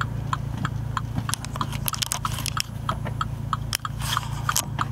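Mini Cooper S turn-signal indicator ticking evenly, about three clicks a second, over a low steady engine hum in the car's cabin. A few short crunching handling noises come about halfway through and near the end.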